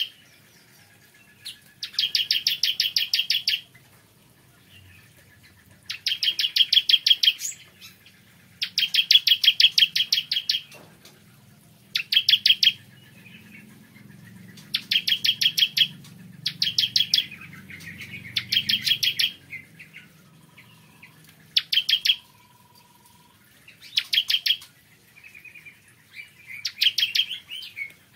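Ciblek kristal, a prinia, singing loud, fast, rattling trills of high notes, each lasting about a second and repeated every two seconds or so, about ten times.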